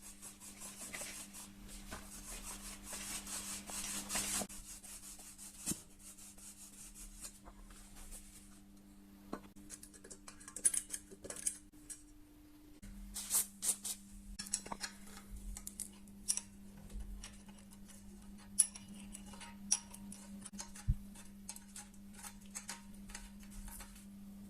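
Hand work on metal bicycle parts: about four seconds of rubbing or scrubbing, then scattered small metallic clinks and clicks as tools and parts are handled, over a steady low hum.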